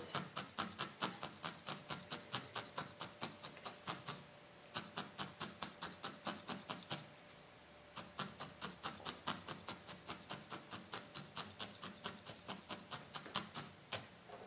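Felting needle stabbing repeatedly into wool, a quick even run of crisp pokes about five a second. The run breaks off briefly twice.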